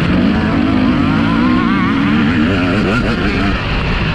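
Several motocross bikes running on a dirt track, their engines revving up and down as the riders work the throttle, several engine pitches overlapping and wavering.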